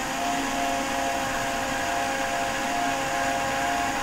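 Countertop blender motor running at a steady pitch, puréeing a smoothie of spinach, juice, frozen pineapple and banana that has already turned smooth.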